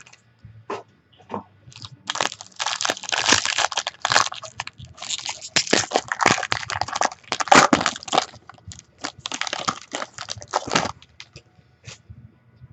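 A trading card pack's wrapper being torn open and crinkled by hand: a long run of dense crackling, with scattered small clicks before and after.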